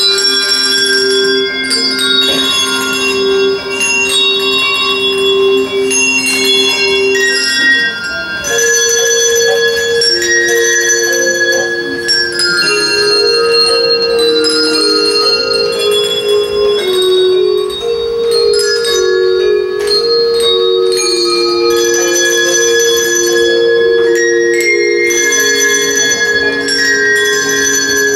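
A handbell ensemble of music bells playing a tune: several bells ringing at once, low notes held for seconds under a changing melody, the low chord shifting about eight seconds in.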